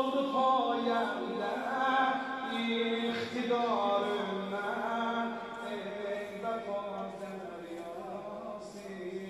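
Male reciter chanting a Shia mourning elegy (mersiye) in a drawn-out, wavering melismatic line, his voice gliding between pitches without distinct words.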